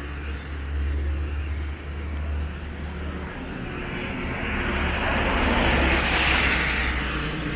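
A motor vehicle passing close by, its tyre and engine noise swelling from about four seconds in and peaking around six seconds, over a steady low rumble.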